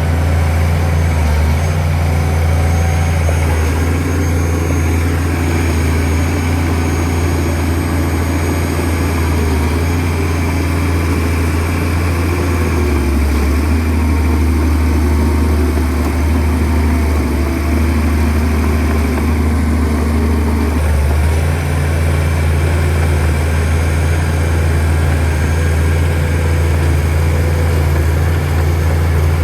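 Shantui DH17C2 bulldozer's diesel engine running steadily with a deep hum, its note shifting a few times.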